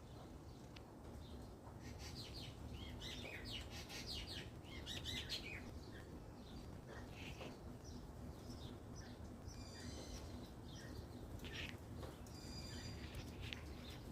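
Magpies giving quick high calls and chirps, a run of them from about two to five seconds in and a few more near the end, over a faint steady low hum.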